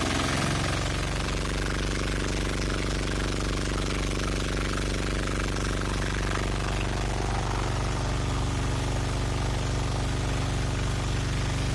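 High-pressure washer's plunger pump, driven by an electric motor, running steadily with a rapid even pulsing; its low tones shift slightly about half a second in.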